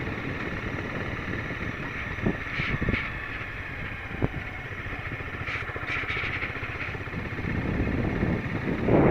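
Honda CBR250R's single-cylinder engine running steadily as the bike rides in circles, heard from the rider's helmet, with a few short clicks in the middle.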